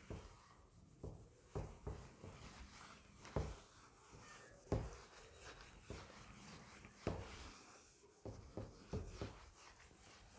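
Whiteboard eraser wiping marker writing off a whiteboard in uneven strokes, with irregular short knocks.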